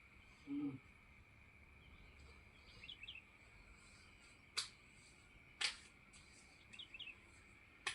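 A coin scraped over balm-coated skin in kerokan coin-rubbing therapy: three quick, separate strokes in the second half, each about a second apart, over a faint steady high whine. A short low sound comes about half a second in.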